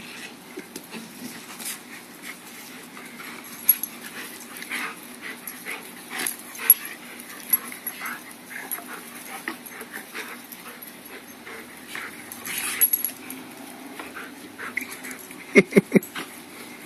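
A Rottweiler and a basset hound puppy play-fighting: scattered whimpers, yips and scuffles, with a quick run of four sharp yips near the end.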